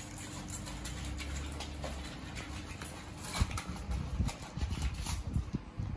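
A Siberian husky's claws clicking and paws tapping irregularly on a tile floor as it moves about, starting about three seconds in, after a steady low hum.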